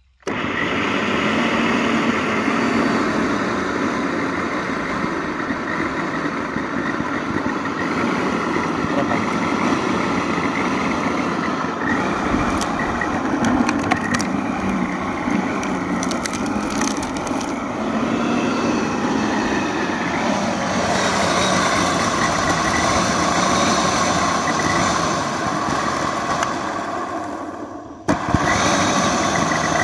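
Corded Lidl electric lawn scarifier switched on and running with a steady, loud mechanical noise, with a run of sharp clicks and cracks in the middle; the owner reports a fault in its motor.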